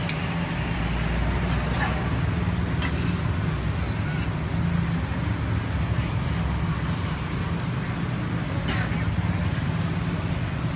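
Steady low rumble of street traffic, with faint voices now and then.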